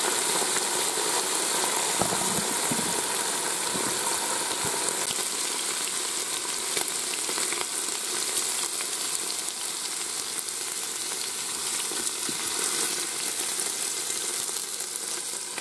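Thin-sliced beef sizzling in oil in the ceramic inner pot of a Ninja Foodi, with occasional light clicks and scrapes of silicone tongs lifting the meat out. The sizzle grows gradually quieter toward the end as the pot empties.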